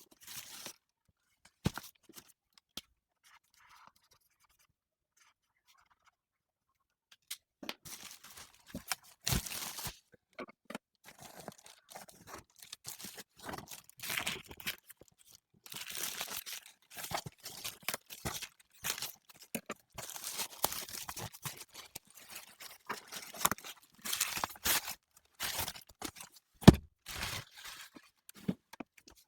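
Unboxing sounds of a stationery parcel: paper and plastic packaging handled and torn open, rustling and crinkling in many short bursts, with occasional sharp taps. It is quiet for a few seconds near the start.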